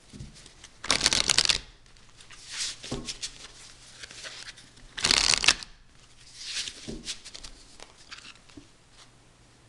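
A deck of Magical Times Empowerment oracle cards being shuffled by hand, the cards flicking and slapping against each other. Two louder flurries of rapid card flicks come about a second in and about five seconds in, with softer, shorter flurries between and after.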